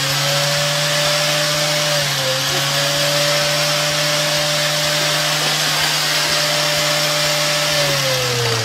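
An electric motor running loudly at a steady pitch with a constant hiss. It dips for a moment about two seconds in, and near the end its pitch slides down as it spins down after being switched off.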